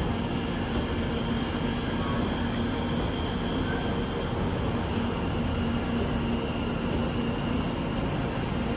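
Steady hum and rumble of a West Midlands Railway Class 730 electric multiple unit standing at the platform, with a constant low tone and no change in pitch.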